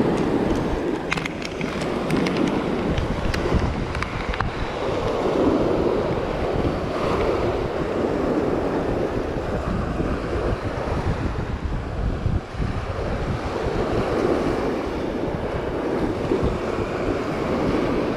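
Choppy surf washing and breaking on a sandy beach, swelling every few seconds, with wind buffeting the microphone.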